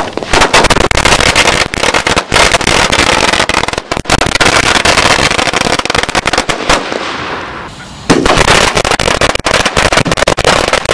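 A string of firecrackers going off as a rapid, continuous crackle of bangs. It thins and softens about seven seconds in, then comes back at full strength at about eight seconds.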